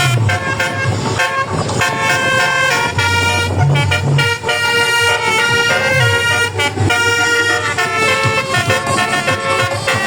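A bus's Basuri telolet horn, a multi-tone air horn, plays a loud tune: held notes that change pitch in steps, one after another.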